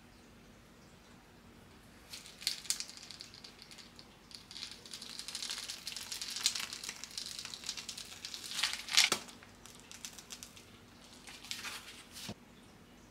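Plastic piping bag of whipped cream being squeezed: crinkling and crackling of the plastic as the cream is piped out, in uneven spells from about two seconds in, loudest about nine seconds in, stopping shortly before the end.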